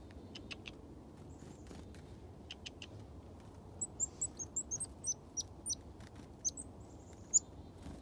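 Small wild songbirds calling close by: a rapid run of short, high chirps starts about halfway in, with a few fainter ticks before it.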